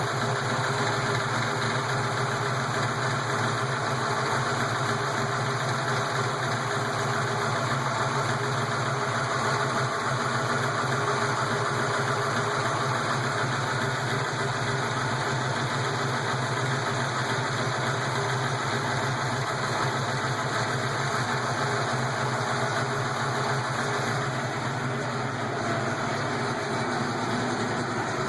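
331 V8 engine idling steadily as it warms up from a cold start, with lifter noise from the valvetrain.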